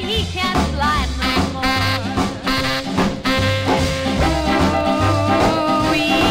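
A late-1950s R&B rock'n'roll shuffle played from a vinyl 45 single: a full band over a steady, repeating bass line, with pitched lines that bend and waver above it.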